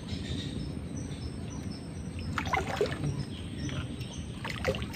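Water splashing in two short bouts, about two and a half seconds in and again near the end, as a hooked mangrove jack fights on the line at the surface, over a steady low background rumble.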